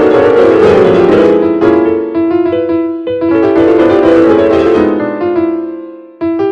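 Piano-sounding keyboard music: quick runs of struck notes for about five seconds that then die away, followed by a single new chord struck near the end.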